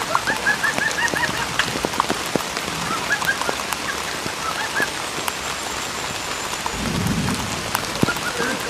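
Steady rain falling, with runs of quick, rapidly repeated bird chirps at the start, in the middle and near the end. A brief low rumble comes about seven seconds in.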